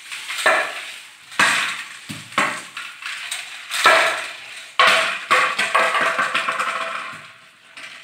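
Hollow plastic toy knocked against a tiled floor: a run of sharp clattering knocks, roughly one a second, with a longer rattly stretch past the middle.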